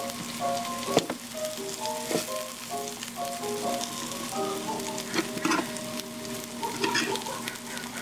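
Food sizzling as it fries in a pan, a steady hiss with scattered small clicks and knocks. A tune of short held notes plays underneath.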